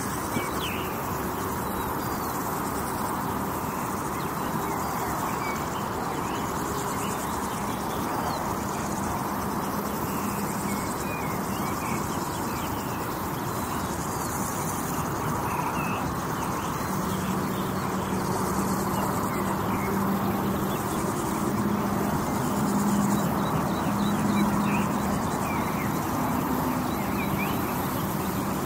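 Summer countryside ambience beside a highway: a steady wash of distant traffic noise with many short bird chirps scattered through it. A low steady hum comes and goes, strongest in the second half.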